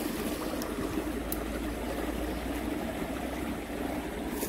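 Shallow, rocky creek water flowing and trickling steadily.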